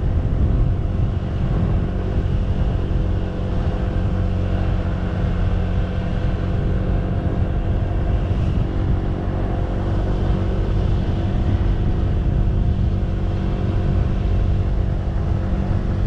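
Motorcycle engine running at a steady cruising speed, heard from on the bike, with a heavy low wind rumble on the microphone.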